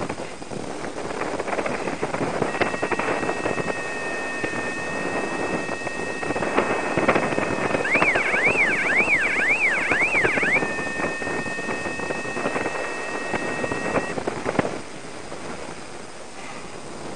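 Airflow rushing over the microphone of a paraglider in flight. From about two seconds in, a steady high electronic two-note tone sounds over it. It warbles rapidly up and down for a couple of seconds midway, then holds steady again and cuts off a few seconds before the end.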